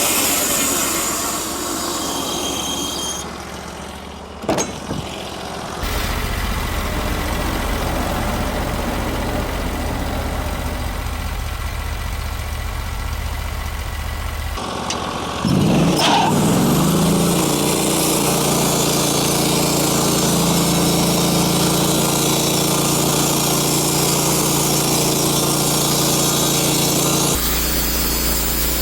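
Portable sawmill's gasoline engine running between cuts, its note shifting about six seconds in and again about fifteen seconds in, with a short sharp knock about four and a half seconds in.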